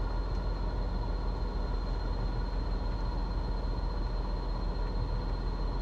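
Steady in-cabin hum of a Mitsubishi Mirage G4 idling with its air conditioning running.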